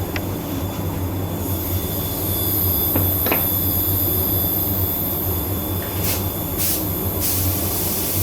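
Steady low mechanical hum of shop machinery, with a steady high hiss joining about a second and a half in and a few short hissing bursts near the end.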